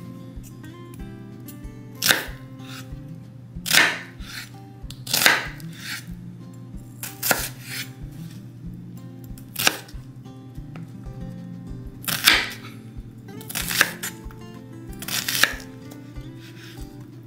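Chef's knife chopping onion on a bamboo cutting board: slow, separate knife strokes, each a sharp knock, about one every second or two. Background music with a steady beat plays underneath.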